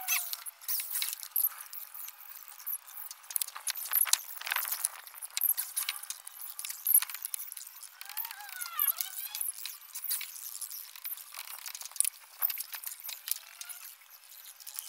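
Irregular clicks, taps and knocks of hand tools and plywood pieces being handled and worked, with no power tool running. A brief wavering pitched sound comes in about eight seconds in.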